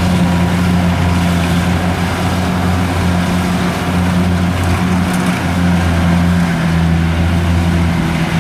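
Diesel engine of a Kubota DC70 rice combine harvester running steadily under load, a constant low drone.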